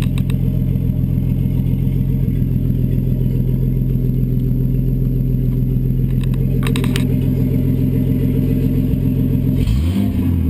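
Nissan RB20DET turbocharged straight-six idling steadily through an open exhaust that ends at the 3-inch front pipe, then blipped up and down in revs near the end.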